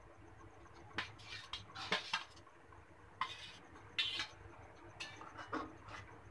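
Metal spatula scraping and clinking against a steel bowl and a metal kadhai as boiled potato pieces are pushed into simmering gravy and stirred in: a string of short clinks and scrapes starting about a second in.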